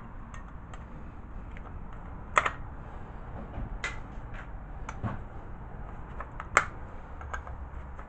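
Hand tools and small metal parts clicking and clinking on a workbench while a microwave magnetron is being dismantled, with scattered sharp clicks and two louder clinks about two and a half and six and a half seconds in.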